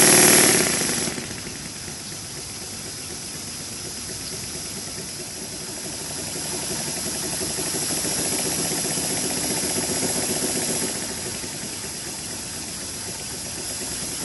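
Double-acting slide-valve model mill engine running on compressed air: a steady hiss of air with a rapid, even beat from the valve gear and crank. It is loudest in the first second, drops off, then builds again for a few seconds in the middle before easing.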